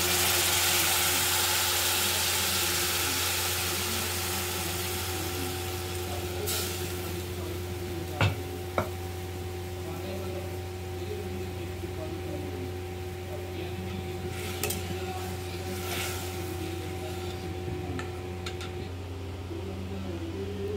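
Water poured into hot oil with onions and spices in a steel pan sizzles loudly, the hiss fading over the first several seconds as the liquid settles to a quieter simmer. Two sharp knocks sound about eight seconds in, over a steady low hum.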